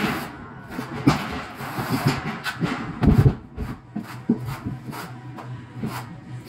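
Notched trowel scraping mortar across a concrete floor in repeated uneven strokes, with a heavier thump about three seconds in.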